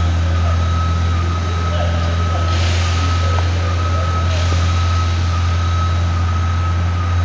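Steady, loud mechanical hum with a constant high, thin whine over it, and a brief hiss about two and a half seconds in that lasts nearly two seconds.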